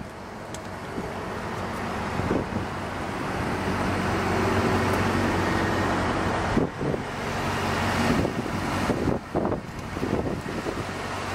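A motor vehicle's engine running, its hum growing louder over the first four seconds and easing after about six. A few short knocks come through near the middle and again toward the end.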